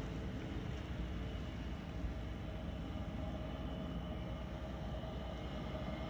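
Snowplow truck running steadily as it plows down the road, a low, even rumble with a faint hum.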